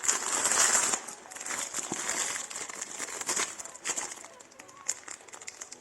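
Packaging rustling and crinkling as accessories are handled during unboxing. It is loudest in the first second, then continues as fainter, intermittent rustles.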